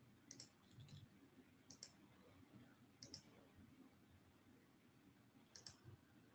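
Faint computer mouse clicks, five brief ones spread over several seconds, several as quick press-and-release pairs, against near-silent room tone.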